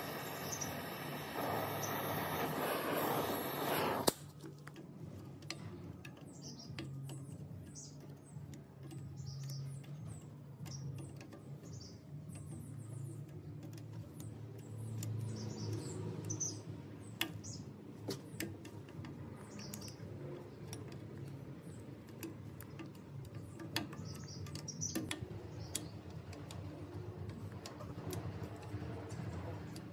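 A machine runs steadily for about four seconds and stops suddenly with a click. After that come scattered light clicks and knocks of hand work over a low hum, with faint short high chirps now and then.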